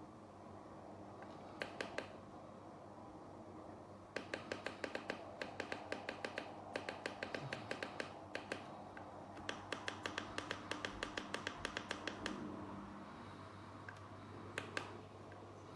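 Rapid runs of small sharp clicks, several a second, coming in bursts of one to two seconds with short pauses between, over a low steady hum.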